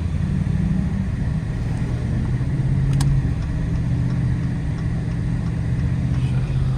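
Dodge Charger R/T's 5.7-litre Hemi V8 running steadily while driving, its low note rising and falling a little, with a single sharp click about three seconds in.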